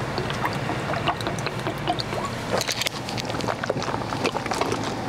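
Gulping and swallowing as a man drinks water from a shaker cup to wash down a dry scoop of pre-workout powder, with scattered small clicks and mouth noises over a low steady hum.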